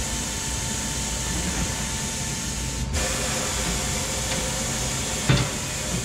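Steady hissing noise with a single thump about five seconds in.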